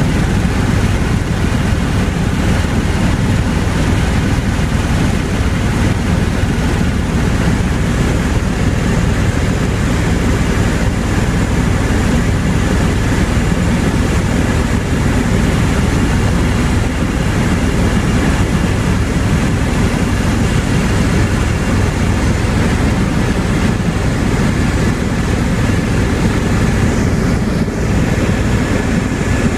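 Helicopter engine and rotor noise heard from inside the cabin: a loud, steady drone with a faint steady high whine.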